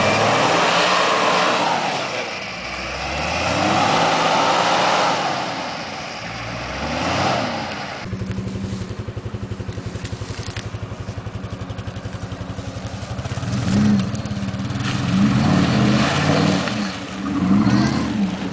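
Off-road 4x4 engines working through deep mud. First a Nissan Patrol's engine revs up and down with a rushing noise of churning mud. About eight seconds in, the sound cuts to another 4x4's engine running with an even throb, which is revved in several surges near the end.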